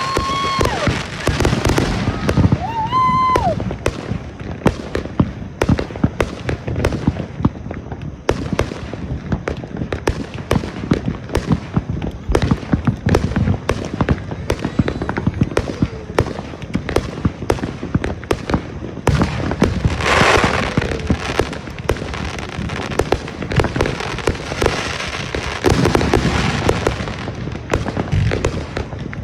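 Fireworks going off in a dense, continuous run of bangs and crackles. Whistling tones sound near the start and again about three seconds in, and a hissing burst comes about twenty seconds in.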